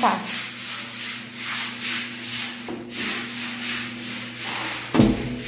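Scuffing and rubbing movement noise, about two a second, from someone walking across a tiled bathroom floor with the phone in hand, over a steady low hum. About five seconds in there is one sharp knock as a hand meets the bathroom door.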